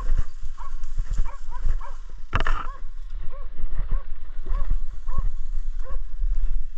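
Hunting dog baying: a steady run of short yelping barks, about two a second. Close rustling and knocks run beneath, with one loud crash about two and a half seconds in.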